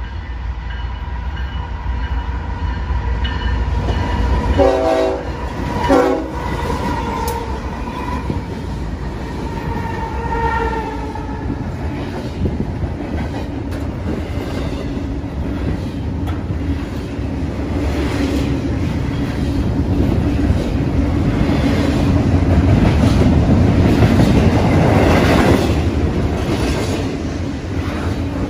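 BNSF double-stack intermodal freight train passing through a station: the diesel locomotive's air horn sounds as it approaches, with two louder blasts about five seconds in, and the horn pitch drops slightly as the locomotive goes by. The stacked container cars then rumble and clatter past over the rails, loudest a few seconds before the end.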